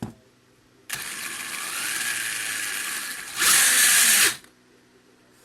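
Small electric motor and plastic gear drivetrain of an RC car whirring under throttle. The pitch rises slowly, it gets louder for about the last second, then cuts off suddenly.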